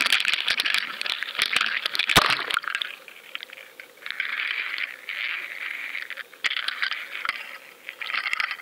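Audio from a GoFish Cam action camera tied to a surf fishing rig as it is cast and sinks: water rushing and crackling against the camera housing, with many sharp clinks and clicks. The sound is densest in the first few seconds and then comes in broken stretches.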